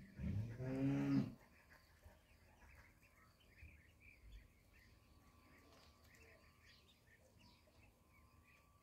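Ducklings peeping, a scatter of short, faint high chirps throughout. Right at the start a much louder, low-pitched call lasts about a second.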